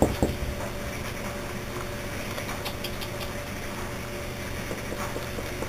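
Steady background hum with a few faint held tones, and a few faint light clicks about halfway through.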